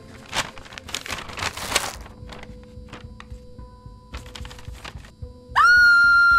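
Paper bag crinkling as it is pulled off, over the first two seconds, then a faint steady drone. About five and a half seconds in, a woman's scream starts loud and is held on one high pitch.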